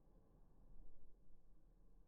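Near silence: faint low room tone, with a slight swell about a second in.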